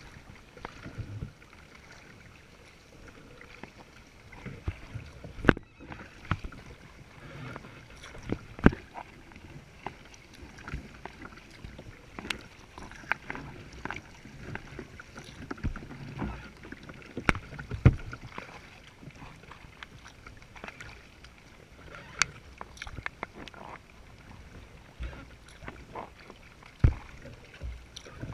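A kayak being paddled: water washing and splashing along the hull, with irregular sharp knocks and slaps picked up through the deck.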